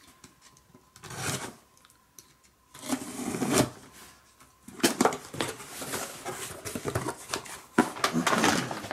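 Packing tape on a cardboard shipping box being slit with a small blade in several scratchy strokes, then the cardboard flaps pulled open and rustling near the end.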